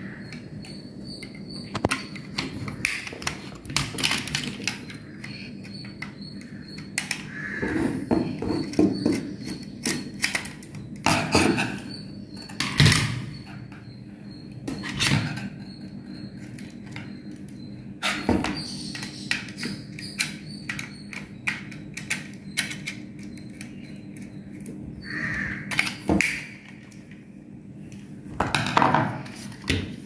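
Hand work on a modular switch plate: a tester screwdriver clicking and scraping on terminal screws, and wires and the plastic plate knocking against a wooden table. The clicks and knocks come irregularly, a few every second or two, over a faint steady hum.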